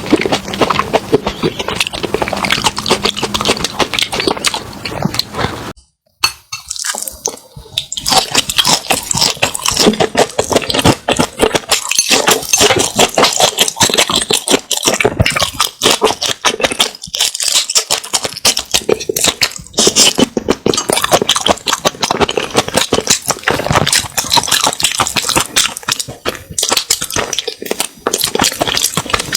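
Close-miked eating sounds: a mouth chewing seafood with rapid wet clicks, smacks and crunches that break off briefly about six seconds in.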